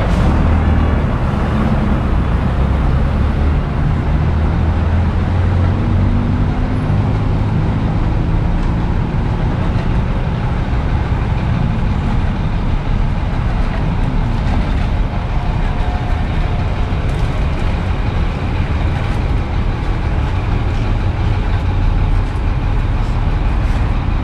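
Road traffic passing close by: a steady rumble of vehicle engines and tyres, with a heavy engine running loudest in the first several seconds.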